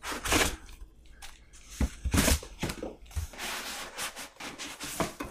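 Handling noise: a run of short rustling, crinkling scrapes, several of them under a second each, as things are moved about and handled.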